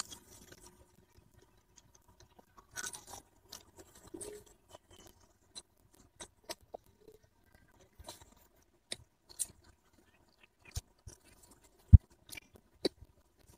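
A person chewing raw meat, heard as irregular soft wet clicks and smacks of the mouth, with a louder thump about twelve seconds in.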